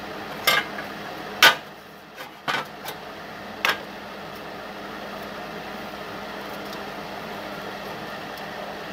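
A steel bar knocked and set against a steel plate by hand: about six sharp metal clanks in the first four seconds, the loudest about a second and a half in, over a steady background hum.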